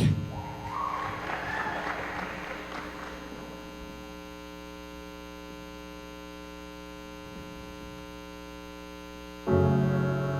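Applause fading out over the first few seconds, leaving a steady electrical mains hum from the sound system; piano music starts abruptly near the end.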